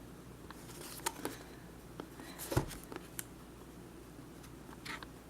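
Faint handling noises: a few soft clicks and rustles, with one louder knock about two and a half seconds in.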